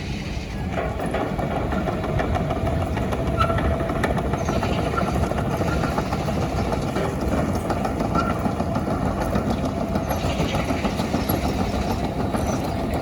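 Diesel engine of a Wacker Neuson midi excavator running steadily, with a steady whine that comes in about a second in.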